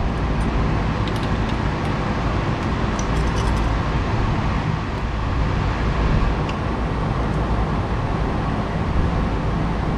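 A steady, even hum and hiss of background machinery in the shop, with a few faint light clicks of parts being handled at the lathe chuck.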